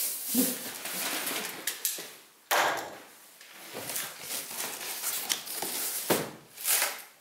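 Cardboard packaging of a boxed thickness planer being opened and handled: rustling, scraping and sliding of cardboard and packing pieces, with a louder scrape or bump about two and a half seconds in and a few more near the end.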